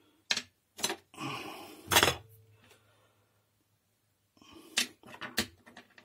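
Metal and plastic parts of a disassembled vacuum cleaner motor knocking and clinking as they are handled: a few sharp knocks in the first two seconds, the loudest about two seconds in, then a cluster of light clicks about five seconds in.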